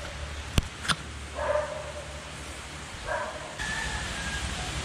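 A dog barking, two single barks about a second and a half apart, with two sharp clicks just before the first bark.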